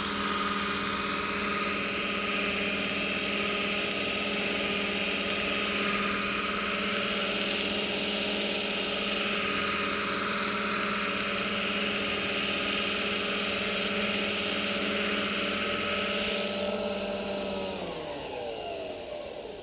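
Electric radio-controlled scale model Agusta A109 helicopter, its motor and main rotor giving a steady whine while it hovers low and touches down. Near the end the whine slides down in pitch and fades as the motor is throttled back and the rotor spins down.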